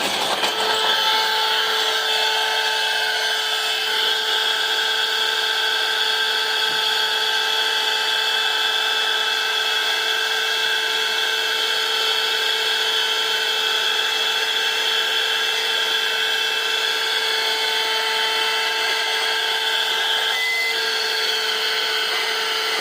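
Small handheld car vacuum cleaner running steadily through its attached hose, a high motor whine over the rush of air.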